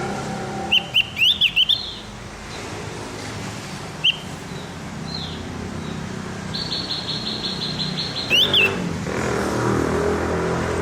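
Javan grey-throated white-eye (opior jawa, also called cucak gentong) singing. It gives a quick cluster of sharp whistled chirps about a second in, a lone note a few seconds later, then a rapid even trill of about a dozen notes followed by more sharp chirps. A steady low background rumble runs underneath.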